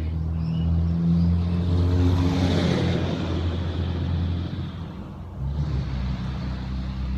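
A motor vehicle's engine running with a low steady hum, with a rushing swell of passing noise that builds to a peak about two to three seconds in and then fades.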